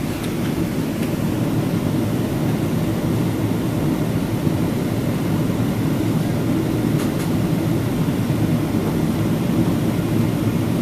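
Steady low rumble of engine and airflow noise inside the economy cabin of a Boeing 777-300ER with GE90 engines, heard during the descent.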